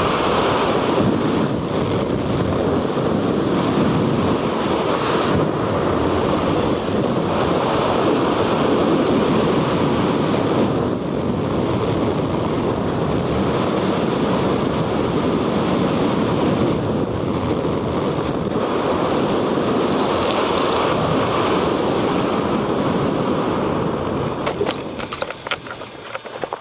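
Steady rush of wind buffeting a skydiver's camera microphone at high speed, fading over the last couple of seconds and then cutting off.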